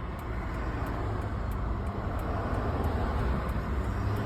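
Car driving, heard from inside the cabin: a steady low rumble of engine and road noise, slowly getting a little louder.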